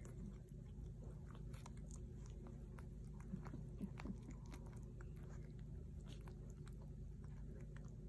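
Faint wet smacking and clicking of dog mouths: young puppies suckling at their mother while she licks and cleans them, over a low steady hum.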